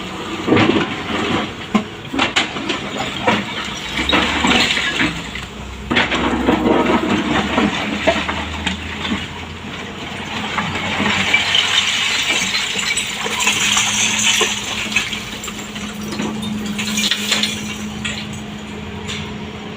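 Excavator working through demolition debris: repeated clattering, knocking and crunching of rubble and scrap over the steady running of its engine.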